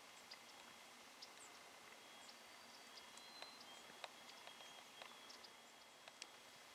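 Near silence: faint steady hiss with scattered soft clicks and a few faint high chirps.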